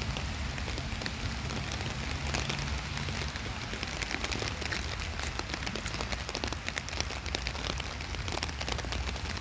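Rain falling on wet paving and puddles: a steady patter of many small drop ticks over a hiss, with a low rumble underneath.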